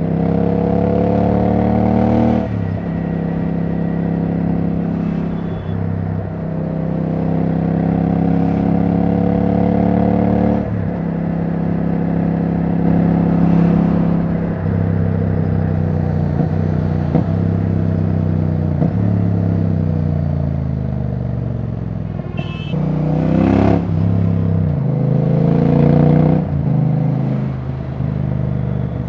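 Royal Enfield Bear 650's 648 cc parallel-twin running with no exhaust silencer fitted, under way. The engine note climbs twice, breaking at each gear change, then falls in steps as the bike slows, and climbs again near the end.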